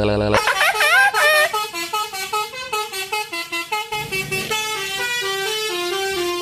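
Telolet bus horn, a multi-tone musical horn, playing a fast tune. It opens with a warbling, wavering phrase, then steps through quick short notes.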